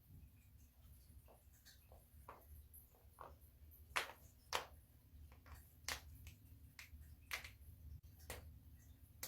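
Joints being cracked: a run of sharp pops and cracks, a few small ones at first and several louder ones from about halfway through.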